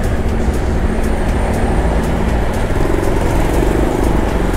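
Single-cylinder Bajaj Pulsar NS200 motorcycle engine running under way, with heavy low wind rumble on the rider's microphone. The engine note rises in the second half as it pulls away.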